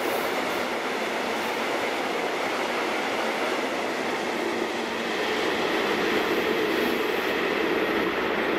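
Freight train of hopper wagons rolling through, a steady noise of wheels on rail that carries on after the last wagons have cleared the platform.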